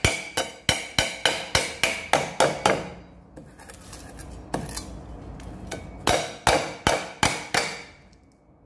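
A large kitchen knife striking a lemongrass stalk against a round wooden chopping board to bruise and split it: a quick run of sharp knocks at about four a second, a pause of a few seconds, then a shorter run of about five knocks.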